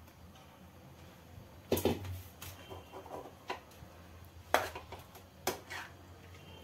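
Metal spoon scraping and clanking against a steel bowl and pan as grated carrot goes into the pan and is stirred: several sharp clanks with scraping between them, the loudest about two seconds in and halfway through.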